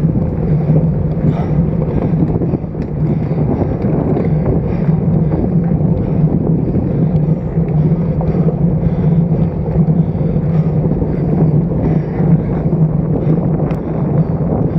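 Steady wind rushing over the microphone of a road bike's handlebar-stem-mounted action camera while riding, with a constant low rumble underneath.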